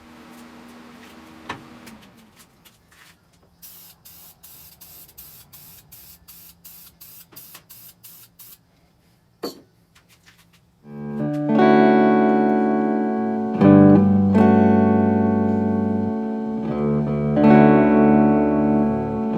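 Faint ticking, about two ticks a second, then loud guitar music starting about eleven seconds in.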